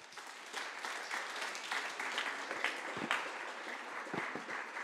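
Audience applauding, many hands clapping together; it starts up suddenly right after the talk's closing thanks.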